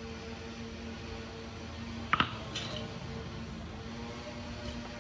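A hard object set down beside a stone grinding slab: one sharp clack with a brief ring about two seconds in, then a fainter tap. A steady low hum runs underneath.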